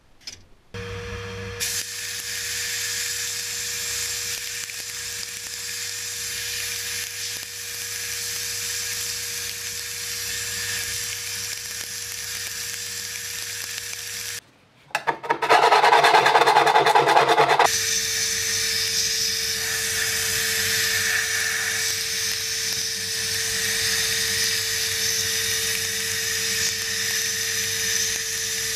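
Sandblasting cabinet running: compressed air and grit hissing from the blast gun as it strips rust from a small steel tiller part, over a steady hum. About halfway the sound cuts out for a moment, then comes back louder and harsher for a couple of seconds before settling back to the steady hiss.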